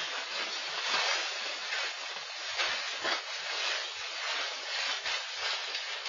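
Perlite pouring and rustling out of a plastic bag into a plastic barrel: a steady gritty hiss that swells and eases as the bag is tipped and shaken.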